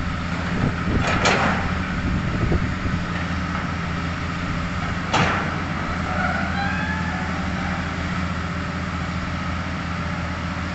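Hitachi Zaxis 200-5G excavator's diesel engine running steadily while the arm digs, with a sharp knock about a second in and another about five seconds in, and faint hydraulic whines in between.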